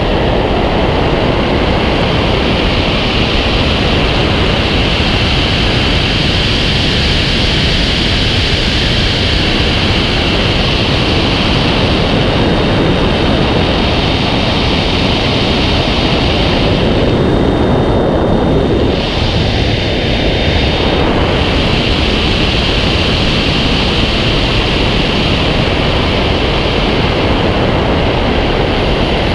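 Loud, steady rush of airflow over a camera mounted on the wing of a glider in flight, with a faint thin whistle through the middle stretch.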